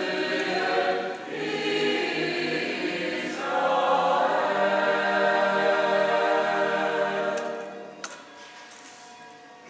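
A choir singing a Christmas song together. The singing ends about eight seconds in, leaving a quiet background.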